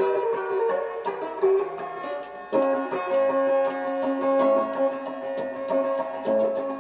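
Solo electric guitar picking a bluegrass tune, with a new chord ringing out strongly about two and a half seconds in.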